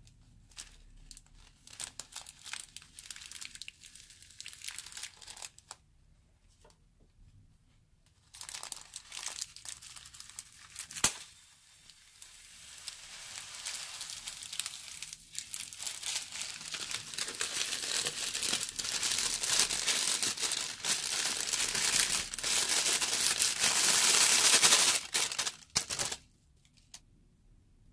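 Plastic piping bag crinkling as it is handled. Then a stream of small foam beads pours out of it into a glass bowl as a continuous rattling hiss, growing louder and stopping suddenly about 26 seconds in. There is one sharp click near the middle.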